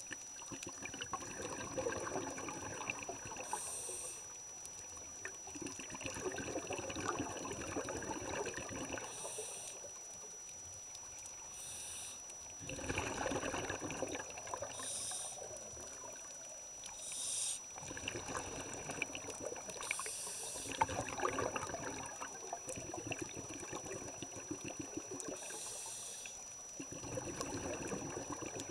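Scuba breathing through a regulator, heard underwater: a rush of crackling exhaled bubbles every five seconds or so, with short hissing inhalations between them.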